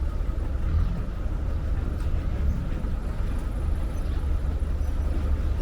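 Diesel engine of heavy construction machinery running steadily, a continuous low rumble.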